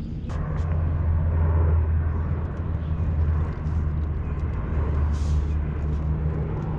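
Steady low drone of a small propeller airplane flying over.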